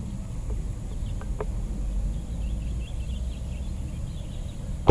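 Quiet outdoor background with a low rumble and faint, scattered bird chirps. Right at the end comes a single sharp crack: the shot of a suppressed Mouser OD 32 PCP air rifle firing a .177 slug.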